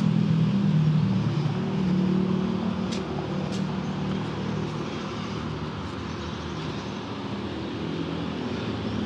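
Road traffic: a motor vehicle engine running close by, loudest in the first few seconds and easing off, over a steady traffic hum.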